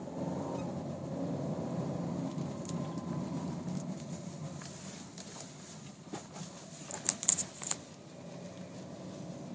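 Car driving at low speed with steady road and engine noise, and a quick cluster of short, high-pitched squeaks about seven seconds in from the speedometer in the instrument cluster, which squeaks between 20 and 40 km/h.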